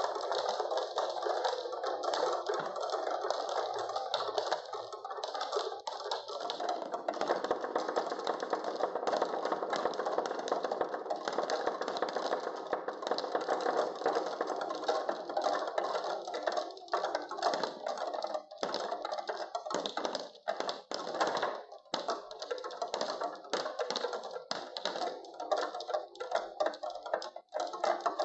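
Many marbles rolling and clattering along wooden marble-run tracks and blocks, a dense, continuous rattle of rolling and clicking. After about 16 seconds it thins out into separate clacks with short gaps.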